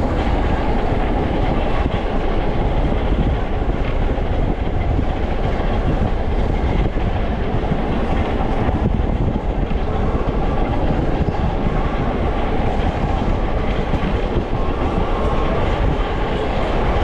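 Vintage BMT AB Standard subway car running along the tracks, heard from inside the car: a steady rumble and rattle of wheels on the rails and the car body.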